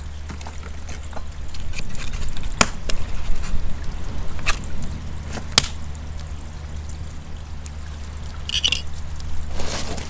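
Campfire of pallet-wood offcuts crackling, with several sharp pops of the burning wood over a steady low rumble.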